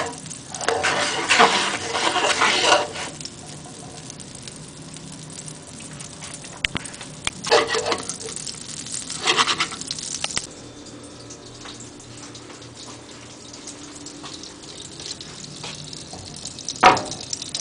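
Butter melting and sizzling in a hot frying pan, louder for the first few seconds and then a steady low sizzle with a few brief louder crackles. A sharp knock near the end.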